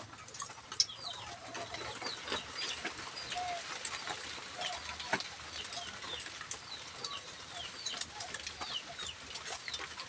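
Small birds chirping and chickens clucking in short repeated calls, over a steady crackling sizzle of leaves frying in hot oil in a wok over a wood fire.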